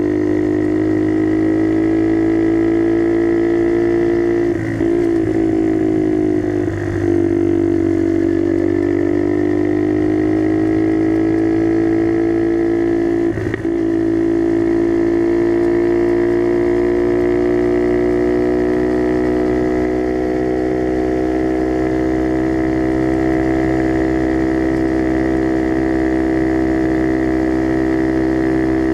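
Skyteam Dax mini motorcycle's single-cylinder four-stroke engine running under way through an aftermarket NHRC carbon exhaust, a steady note. The note dips briefly three times, about five, seven and thirteen seconds in, then climbs slowly in pitch.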